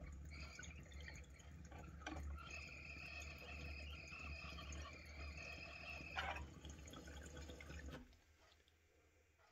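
Water bubbling through the percolators of a glass water pipe during a long inhale through a FlowerPot vaporizer bowl, with a thin steady whistle partway through. The bubbling stops about eight seconds in.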